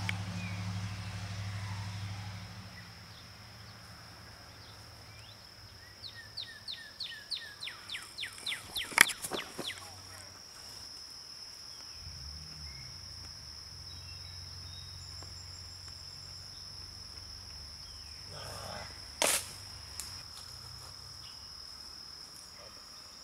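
Outdoor summer ambience: a steady high insect drone, with a quick run of chirps about six seconds in. Two sharp knocks cut through, the louder about nine seconds in and another about nineteen seconds in, over a low rumble near the start and again through the middle.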